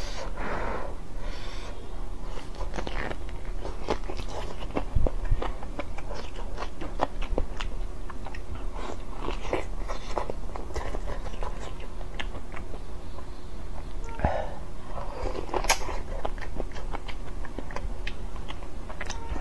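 Close-miked biting and chewing as meat is gnawed off a bone held in the hand, with many small wet clicks and smacks.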